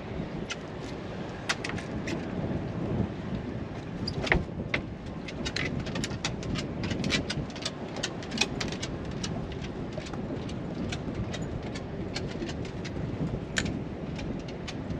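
Wind rumbling on the microphone, overlaid by many irregular sharp clicks and ticks, thickest through the middle.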